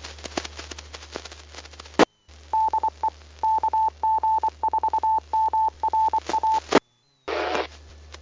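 Amateur radio repeater sending its Morse code identification: a single steady tone keyed in long and short beeps over a hissy, clicking FM channel. The carrier then drops out, a brief burst of static follows, and it drops out again.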